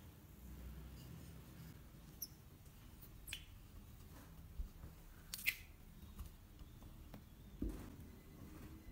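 Rolling pin rolling out soft bread dough on a silicone baking mat: a faint low rubbing with scattered light clicks and taps. The sharpest click comes about halfway through, and there is a dull thump near the end.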